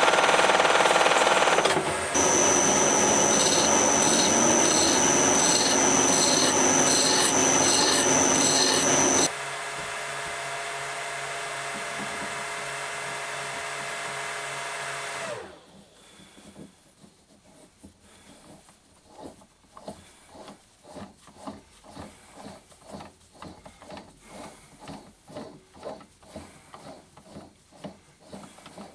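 Metal lathe cutting a cast iron workpiece: a loud, steady machining noise for about nine seconds, then the lathe running more quietly and winding down about fifteen seconds in. After that comes soft, rhythmic rubbing and clicking, several times a second, as the collet chuck's nosepiece is unscrewed by hand.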